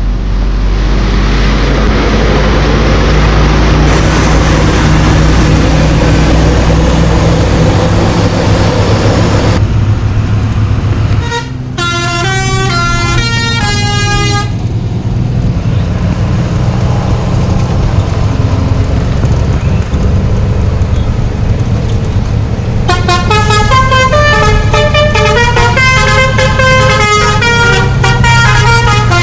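Bus musical horn playing a short tune of stepped notes about twelve seconds in, then again through the last six seconds, over the bus engine running and road noise.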